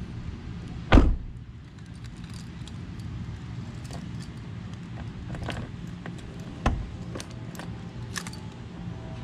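A Honda CRX rear hatch is shut with one loud thud about a second in. Keys jangle and a key works the hatch lock, with small clicks and one sharper click a little before seven seconds, over a steady low rumble.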